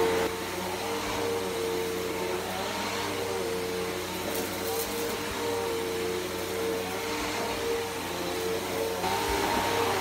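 Upright vacuum cleaner running steadily while it is pushed over carpet: a constant motor whine with a rushing of air.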